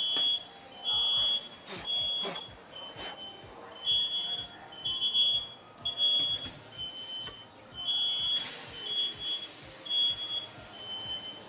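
Smoke alarm going off from a pan fire on the stove, repeating short, high-pitched beeps about once a second. A few sharp knocks come about two seconds in, and a hissing rush starts about six seconds in and grows stronger after eight.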